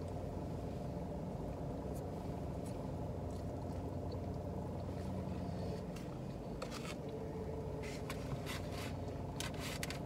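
Steady low hum inside a car cabin, with scattered faint clicks of chewing and lip-smacking from someone eating a falafel wrap.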